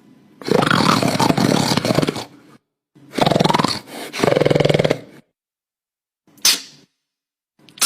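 Monster sound effects: two long, rough growling roars, one after the other, then two short sharp bursts near the end.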